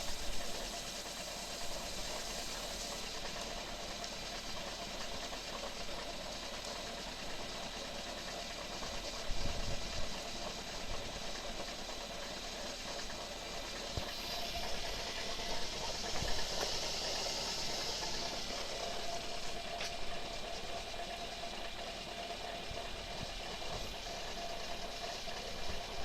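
Ford Focus 2 idling steadily, with a knock at idle and a few sharper knocks scattered through it. The owner ties the knock to the car's MTX75 five-speed manual gearbox.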